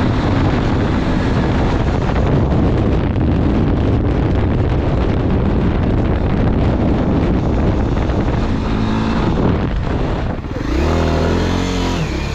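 Honda 300 cc single-cylinder dual-sport motorcycle ridden at speed: the engine runs under heavy wind rush on the microphone. Near the end the rushing eases and a steadier engine note comes through.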